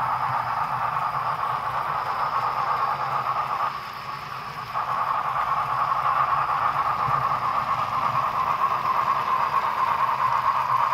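Model New York Central USRA 4-6-2 steam locomotive running along the layout track: a steady, noisy running sound with a low hum, dipping briefly about four seconds in.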